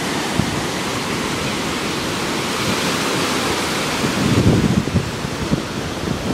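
Ocean surf breaking and washing up the shore, a steady rush of foaming water, with wind buffeting the microphone in low gusts about four seconds in.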